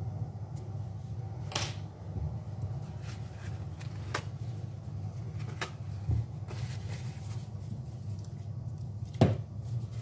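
Scattered light knocks and clicks of hands handling a small plastic tool and tissue while cleaning old thermal paste off a laptop CPU, over a steady low hum; the loudest knock comes near the end.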